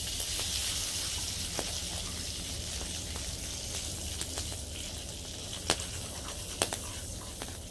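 Wood fire crackling, with scattered sharp pops, the loudest about five and a half and six and a half seconds in, over a steady hiss.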